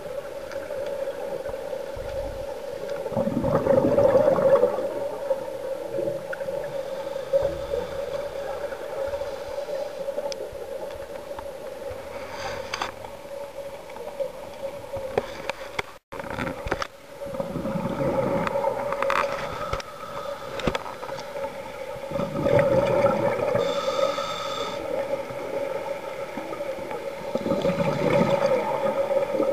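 Scuba regulator underwater, a diver's breathing: exhaled bubbles gurgle out in loud bursts every five seconds or so, over a steady hum.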